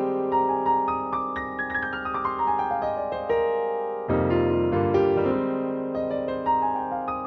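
Workstation synthesizer playing a piano-type patch: quick single notes stepping downward over ringing chords, with a fresh full chord and bass struck about four seconds in.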